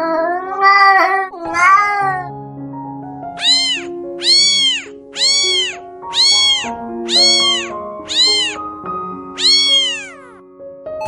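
Cat meowing over background music: two lower meows in the first two seconds, then a run of seven alike high-pitched mews about one a second.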